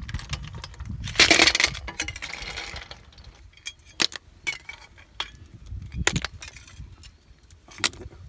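Boiled snail shells clattering off a perforated steel skimmer into a steel bowl, with hard clinks of shell and metal. A loud burst of rattling comes about a second in, then single sharp clinks every second or two.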